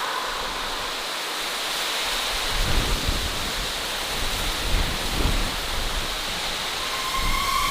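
Thunderstorm sound effect: a steady hiss of rain with low rumbles of thunder, about three seconds in and again around five seconds.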